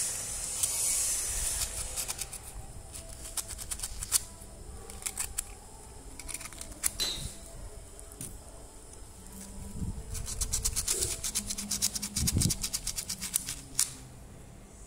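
Sandpaper rubbed back and forth on the metal contact of an electric kettle's base connector. It makes short scratchy strokes in spells, coming thick and fast for a few seconds near the end. The contact is being scoured clean of the black deposit that was causing a bad connection at that joint.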